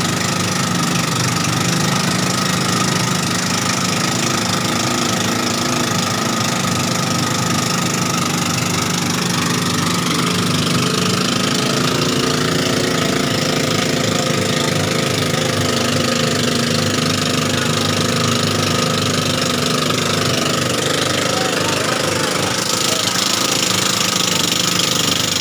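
Boat engine running steadily, a continuous loud drone that holds the same speed throughout.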